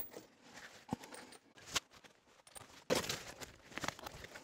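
Heavy steel tire-chain links clinking as the hooks of a bungee-style chain tightener are clipped onto the chain on a compact tractor's rear tire: a few scattered short clinks, with a quick cluster about three seconds in.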